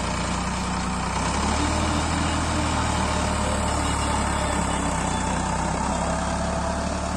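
Farmtrac 45 tractor's diesel engine running steadily while it pulls a land leveler across loose soil. Its low engine note grows a little louder about a second in.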